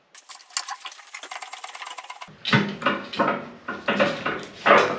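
A fast, even run of clicks, roughly a dozen a second, for about two seconds, then louder irregular metal clanks and knocks as car-lift parts and tools are handled.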